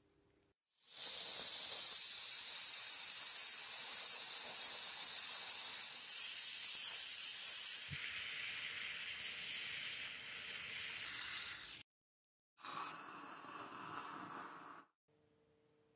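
Gas torch flame hissing steadily while heating a braided copper-wire cuff. After a short break, a softer sizzling hiss as the hot copper braid is quenched in a glass of water.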